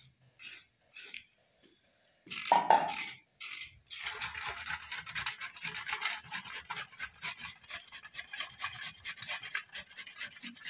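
Carrots being grated on a hand grater: steady, quick rasping strokes, several a second, starting about four seconds in after a few short scrapes and a brief louder noise.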